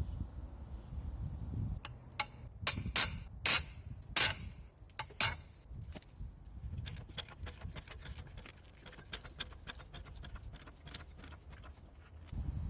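Hand tools striking and clinking on metal: a few loud, sharp knocks at uneven intervals, then a longer run of quicker, lighter clicks.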